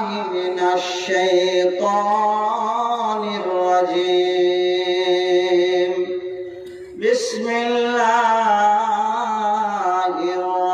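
A man's voice chanting a melodic recitation in long, drawn-out, wavering phrases, a preacher's sung recitation. It breaks off briefly about six and a half seconds in, then a new phrase begins.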